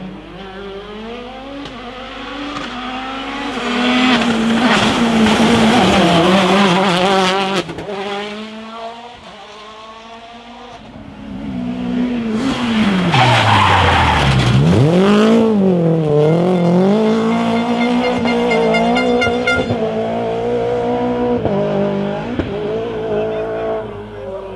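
Rally car engines revving hard on a special stage, climbing and falling in pitch as the drivers shift and brake. The engines are loudest twice, the second time with a deep drop in revs and then a climb.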